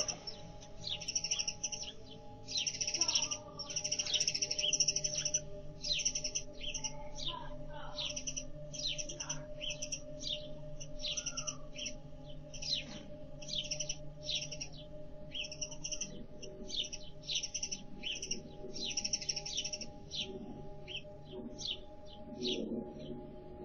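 Small birds chirping over and over, a short high chirp about once or twice a second, over a steady, sustained background music drone.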